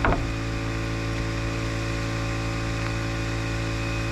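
Steady mechanical hum of an engine running at a constant speed, with a short knock right at the start.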